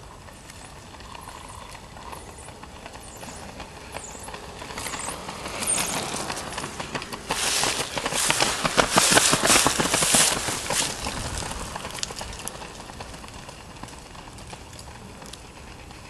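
Footsteps of a small pack of marathon runners on an asphalt path, a quick patter of many feet that grows as they approach and is loudest as they pass, about eight to ten seconds in, then fades.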